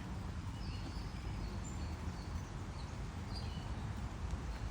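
Outdoor background with a steady low rumble and scattered faint, short, high bird chirps.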